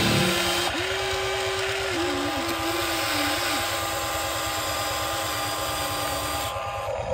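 Small electric motors of a Huina 1593 RC excavator whining steadily as it works its tracks and arm, the pitch dipping briefly a few times about two to three seconds in as the motors are loaded.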